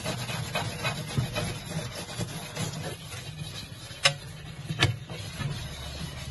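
A hand-held scrubber rubbing and scraping over aquarium glass in irregular strokes, working off dried algae and salt crust loosened with acid. Two sharp clicks come about four and five seconds in.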